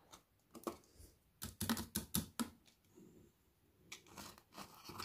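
Thin clear plastic lid being prised off a small round plastic cup: a quick run of loud crackling plastic clicks about a second and a half in, then more clicks and light rustling as the lid and cup are handled near the end.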